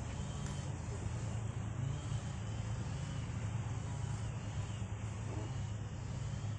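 Small boat motor running steadily at a constant low drone, pushing a wooden river boat along.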